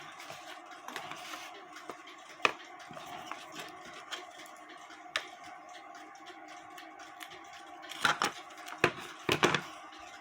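Bench handling sounds as paper is glued onto a cuckoo clock bellows: scattered light clicks and taps, then a cluster of louder knocks near the end, over a faint steady hum.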